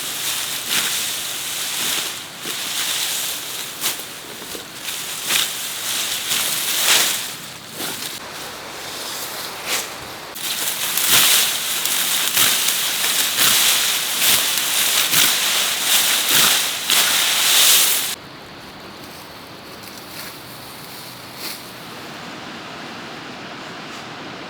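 Grass being cut by hand: repeated swishing, rustling strokes through dense vegetation. The strokes stop abruptly about 18 seconds in, leaving a faint steady outdoor hiss.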